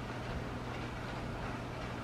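Heavy rain falling steadily, a constant hiss of rain pouring down outside, with a steady low hum underneath.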